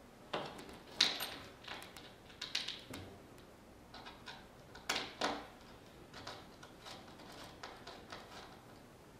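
Irregular sharp clicks and knocks of metal hardware being handled: the drawer's latches being fitted and worked. The loudest ones come about a second in and again around five seconds in.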